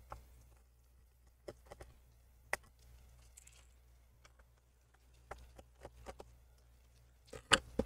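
Scattered faint clicks and taps of a Phillips screwdriver on the bottom-cover screws of a Lenovo Legion 5 Pro laptop as they are unscrewed, over a faint steady low hum.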